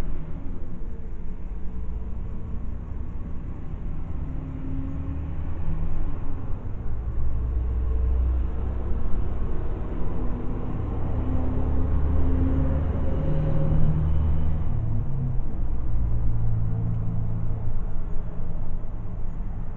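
A car on the move, heard from inside the cabin: a steady low engine and road rumble whose pitch drifts up and down, growing louder about seven seconds in.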